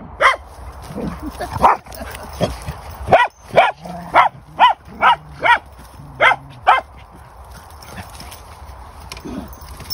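A dog giving a run of about ten high-pitched barks, roughly two a second, while dogs chase and play-fight; the barking stops about seven seconds in.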